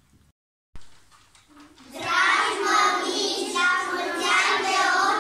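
A group of young children singing together in unison, starting about two seconds in after a moment of dead silence and a click.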